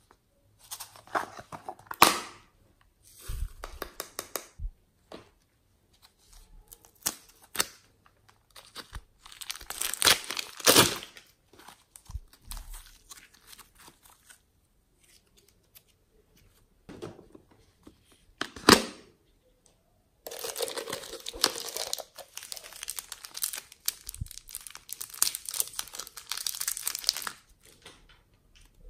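Soft modelling clay pulled apart and torn by hand, making crinkly, crackling tearing sounds in irregular bursts with sharp clicks. Near the end comes a longer stretch of dense crackling.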